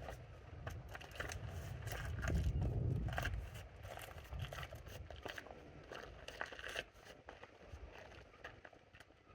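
Close handling noise: a run of irregular clicks, scrapes and rustles, over a low rumble of wind on the microphone that swells about two seconds in and dies away.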